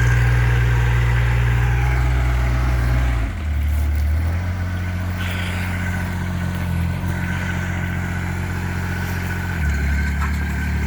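20 horsepower Kubota diesel engine of a mini excavator running steadily. Its note changes about three seconds in and again near the end.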